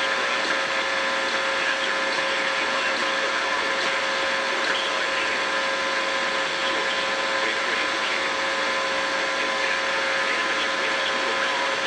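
Steady hiss of radio static from a weather-radio broadcast between messages, with a constant hum tone running through it.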